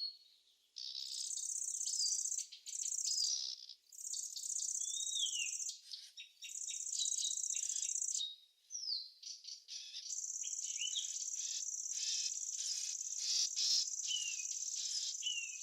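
Insects stridulating in high-pitched buzzing bouts of a second or two, which run on continuously from about two-thirds of the way through, with birds' short falling chirps mixed in.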